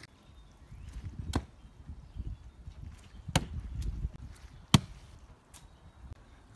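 Thrown SOG throwing knives striking the wooden target board: three sharp thunks a second or two apart, the third the loudest, then a fainter knock.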